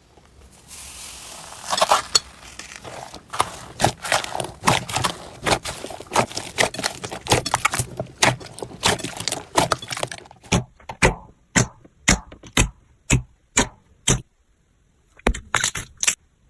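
Slime worked by hand, giving a run of sharp sticky pops and clicks. Around two-thirds through they settle into an even beat of about two a second, then pause briefly before starting again.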